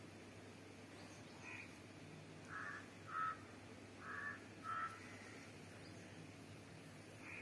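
A bird calling: four short calls in two pairs around the middle, with a fainter, higher call before them and another near the end, over a faint steady background.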